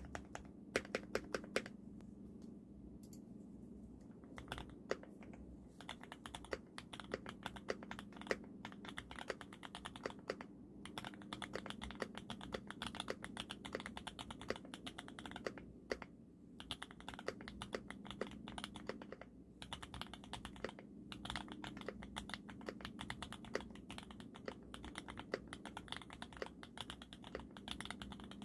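Typing on a Sangeo60 60% custom mechanical keyboard with GMK Crimson Cadet keycaps, lubed switches and lubed Cherry stabilizers. A few separate key presses at first, then steady continuous typing from about six seconds in, with a couple of short pauses.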